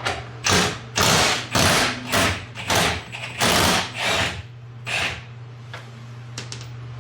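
A wrench working the 18 mm knuckle bolts loose in a string of short, noisy bursts, about two a second, that stop about five seconds in. A steady low hum runs underneath.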